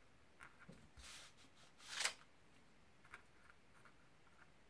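Pen writing on paper: faint scratching strokes, with one louder, longer stroke about two seconds in.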